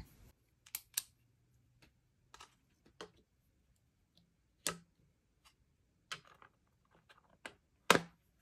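Light, scattered clicks and taps of a pen being handled and set down in a small desk pen tray. The two loudest knocks come about halfway through and near the end.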